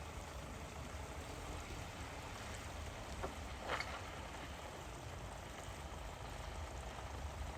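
Steady rush of flowing floodwater at a ford, with a brief louder burst about halfway through.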